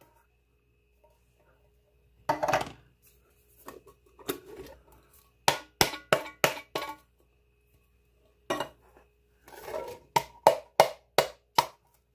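Tin cans of peas being knocked and tapped as they are emptied into a metal pot, several quick metallic knocks in a row at a time, with short slithering pours of peas and liquid between them.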